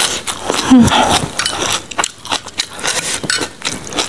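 Close-miked chewing: wet mouth clicks and smacks of a person eating raw lettuce and rice vermicelli, with a brief low hum about three-quarters of a second in.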